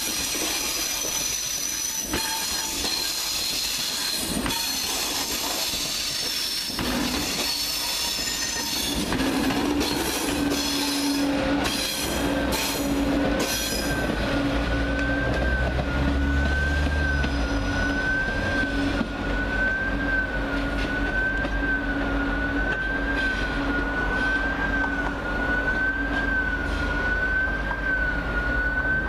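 TGV high-speed train rolling slowly over the station approach, its wheels squealing in several high tones with clicks over the points. About halfway through, the squeal gives way to a low rumble as the power car passes. Then a siren wails, rising and falling steadily, to the end.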